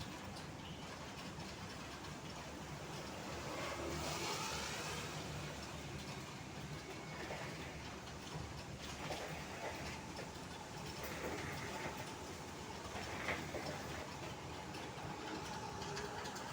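Road traffic on a rain-soaked road: a steady wash of wet tyre and engine noise, with one vehicle swelling past about four seconds in and a short knock near the end.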